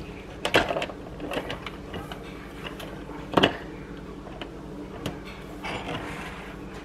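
Rotary drum grater being set up and handled: a series of separate plastic clicks and knocks, the loudest about three and a half seconds in.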